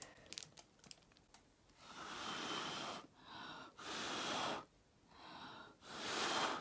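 Breath blown through a clear plastic straw onto wet acrylic paint in five puffs, the first the longest, with short pauses between: blowing the poured paint out into a bloom.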